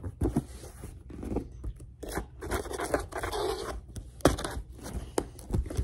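Scissors cutting and scraping at a cardboard box, an irregular scratchy rasping with a few sharp clicks in the second half.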